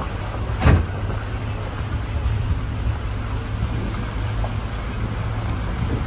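Vehicle engine and tyre rumble heard inside the cabin while driving slowly over a rough, rubble-strewn road, with a single loud thump less than a second in.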